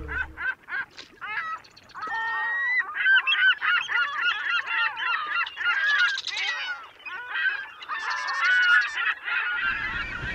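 A flock of birds calling all at once: many overlapping, wavering calls crowded together with no break.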